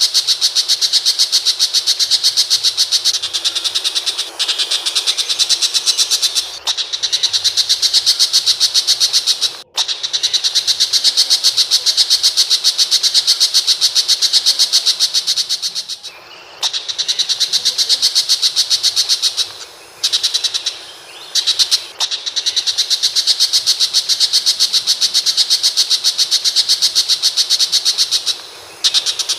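A pentet macan shrike singing a harsh, rapid chatter of fast repeated high notes, running almost without pause and broken only by a few short gaps.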